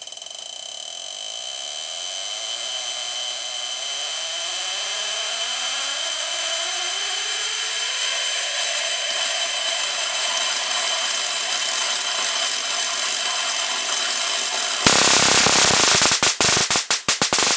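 High-voltage DC corona and spark-gap setup running with a steady high-pitched whine and hiss, with fainter tones rising in pitch early on. About fifteen seconds in, the needle-to-plate air gap breaks down into a loud, buzzing spark discharge that breaks up into separate sharp snaps: the corona has gone over into full spark breakdown.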